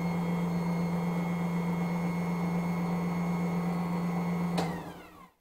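Electric stand mixer running steadily with a low hum while mixing dry bread flour, salt and yeast. A little over four seconds in it is switched off and the motor winds down with a falling whine.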